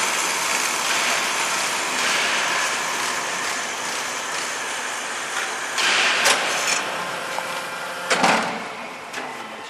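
Amada HA250W hydraulic horizontal band saw running, its blade just set back to a higher speed, with a steady machine noise. Two short, louder, harsh bursts come about six and eight seconds in, and after them the noise drops.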